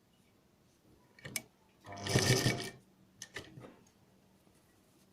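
Sewing machine stitching a short run of under a second, about two seconds in, sewing a cord-piping strip onto a neckline. Softer clicks come just before and after the run.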